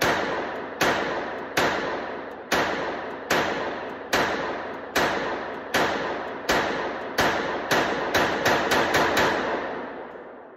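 An AR-style .22 LR pistol with a short 4.5-inch barrel and no muzzle device firing about sixteen semi-automatic shots, just under a second apart at first, then several a second near the end. Each shot is a sharp crack that rings out in the indoor range's echo.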